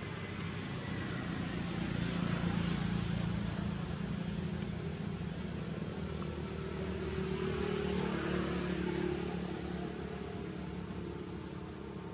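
A distant motor vehicle engine hums steadily, swelling louder twice as it passes, with a few short, high chirps scattered over it.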